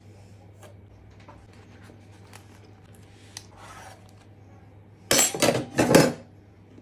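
Kitchen knife sawing through a rolled flour-tortilla burrito against a countertop: a few loud scraping strokes about five seconds in, after a stretch of faint clicks over a low steady hum.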